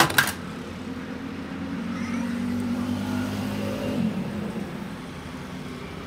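Sharp metal clicks as a drill chuck on its arbor is seated in a lathe tailstock, then a steady low hum of running workshop machinery while the chuck is tightened by hand.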